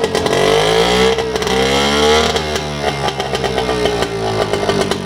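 A 1950 British Seagull 102 outboard's single-cylinder two-stroke engine is revved up. It climbs to a fast run for about two seconds, then eases back down to a slower, uneven run. It is running without propeller load, because the lower gearbox has been removed.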